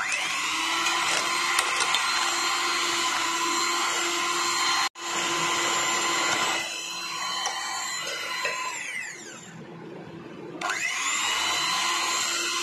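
Electric hand mixer's motor running steadily with a high whine as its twin wire beaters cream butter and powdered sugar in a bowl. About nine seconds in it winds down in pitch, then speeds back up a second and a half later.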